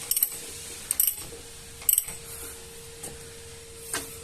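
Sharp metallic clinks of steel parts knocking together as a Harley-Davidson Softail's rear swingarm and shock mount are worked into place: three about a second apart, then a lighter one near the end, over a faint steady hum.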